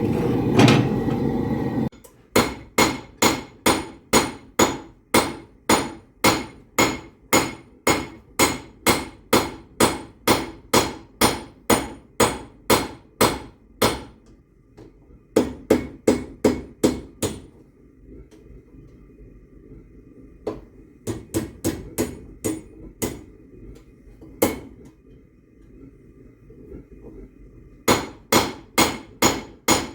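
Forge running with a steady rushing noise for about the first two seconds, then it cuts off. A hammer strikes hot half-inch mild-steel rebar on an anvil in runs of sharp, ringing blows, about two to three a second, with short pauses between runs.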